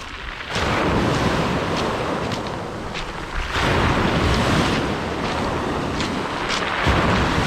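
Sea waves washing in on the shore in surges, one rising about half a second in and another about three and a half seconds in, with wind buffeting the microphone.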